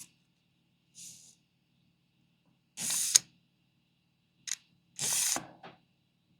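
Tape measure being worked by hand: short rattling bursts as the blade runs out of and back into the case, a few times, one ending in a sharp click.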